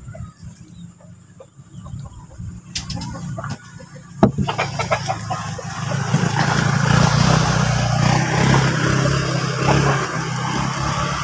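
A motor engine running steadily nearby, coming in loudly about four seconds in after a quiet stretch broken by a couple of sharp clicks.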